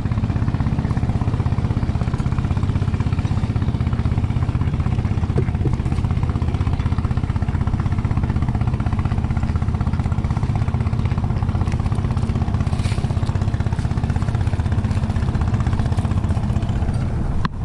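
Engine running steadily at a constant speed, a low, even throb.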